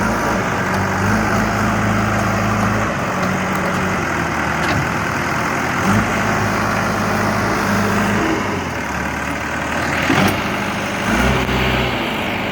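JCB 3DX backhoe loader's Kirloskar diesel engine running, its pitch stepping up and down several times as the load changes, with a single sharp knock about ten seconds in.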